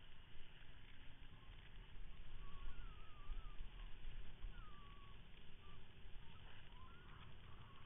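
Low steady rumble of a ski tow boat under way, its engine and wake churning. A thin, high whine that wavers in pitch comes and goes several times.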